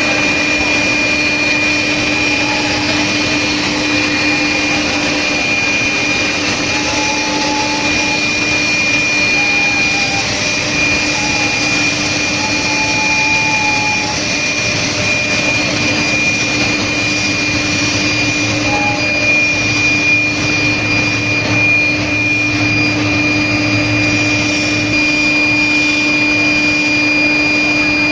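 Induction heating line for steel rail running: steady machinery noise with a constant high-pitched whine and a low hum.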